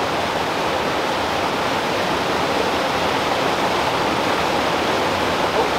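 Small rocky mountain creek rushing steadily over boulders and a little cascade.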